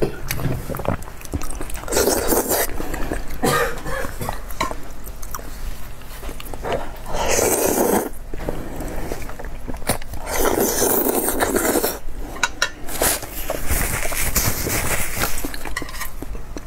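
Close-up wet eating sounds: a person chewing and slurping soft, saucy food, with several long sucking slurps a second or so each.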